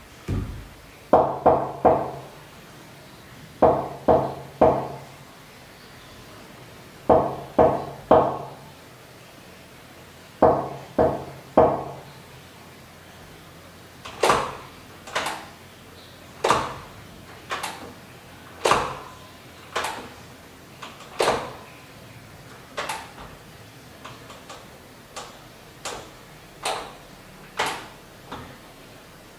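Knuckles knocking on a wooden door: several bursts of three or four quick raps with pauses of a few seconds between them, then slower single knocks about one a second that get fainter toward the end.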